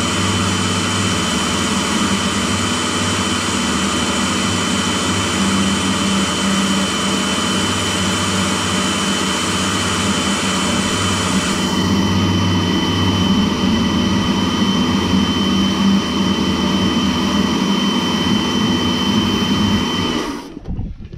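Pressure washer running, its lance jetting water onto an alloy wheel to rinse it: a steady motor hum and a high whine under the hiss of the spray. The hiss turns duller a little past halfway, and the machine cuts off suddenly near the end.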